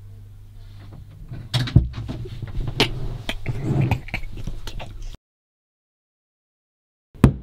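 A man laughing amid bumps and clicks, which cut off suddenly into silence. Near the end come three sharp knocks on the cupboard door.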